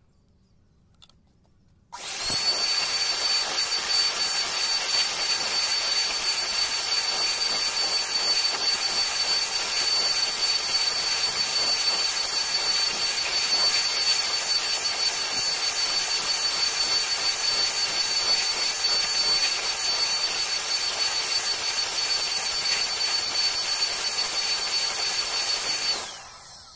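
Compressed air hissing from a blow nozzle with a steady high whistle, blowing dust out of a tractor's air filter. It starts abruptly about two seconds in and cuts off near the end.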